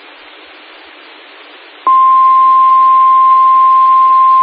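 Radio channel hiss, then about two seconds in a loud, steady single-pitched alert tone starts abruptly and holds. It is the 1050 Hz warning alarm tone of NOAA Weather Radio, announcing a severe thunderstorm warning.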